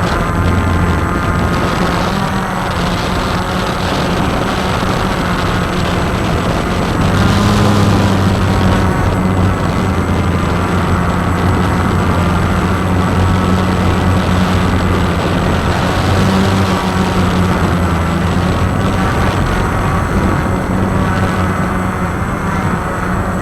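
Walkera QR X350 quadcopter's motors and propellers buzzing steadily in flight, the pitch shifting a little with throttle and swelling briefly about seven seconds in.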